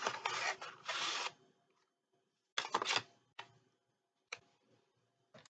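Crinkling plastic packaging of embroidery-kit threads being handled: a loud crackle for the first second or so, then a short burst of crinkles near the middle and a few single crisp clicks.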